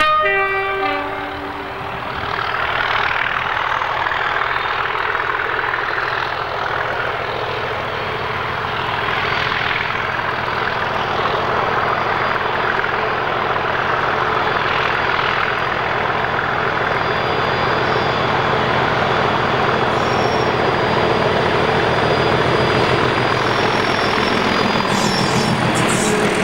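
A Class 37 diesel locomotive gives a brief two-tone horn blast, a higher note then a lower one, right at the start. Its English Electric engine then runs loud and steady under power as it hauls its coaches toward and past, with the coaches' wheels clattering over the track near the end.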